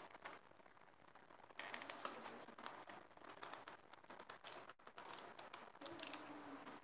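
Faint scratching, rustling and small clicks of a cardboard box being pried and pulled open by hand.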